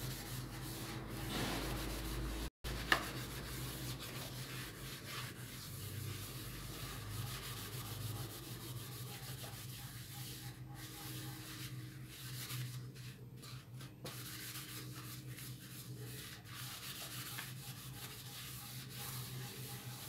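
Steel wool scrubbing a foamy metal pan lid, a continuous wet scouring and rubbing sound, with one sharp click about three seconds in.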